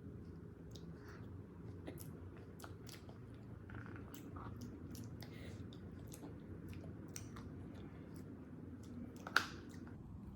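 Close-miked chewing of a soft, sticky dessert of chewy glutinous-rice mochi balls with cream and sauce, with scattered wet mouth clicks and smacks. A sharper click comes about nine seconds in.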